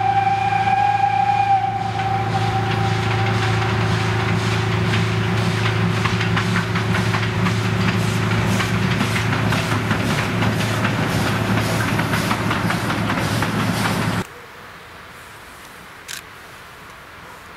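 OKz32-2 steam locomotive working a train: a steady whistle ends about two seconds in, then fast, even exhaust beats run on. Near the end the sound drops suddenly to a quiet background with one short click.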